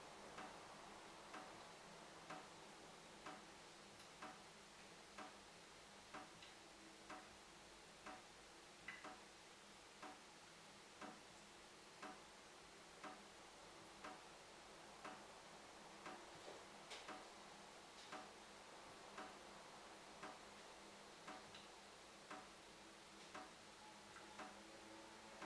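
Water dripping from a tap, one short drop about every second in a steady rhythm, with now and then two drops close together.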